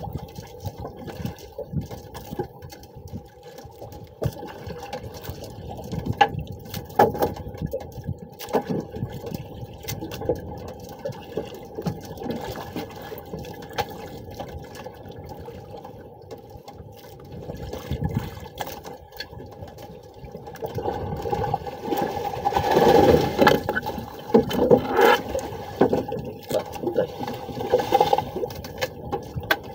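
Sea water sloshing and slapping against the hull of a small outrigger fishing boat, in irregular washes that grow louder about two-thirds of the way through, over a faint steady hum.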